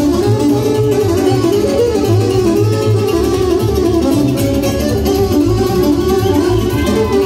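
Live Romanian folk dance music from a wedding band of accordion, electronic keyboard and saxophone, an instrumental tune running over a steady bass beat with no singing.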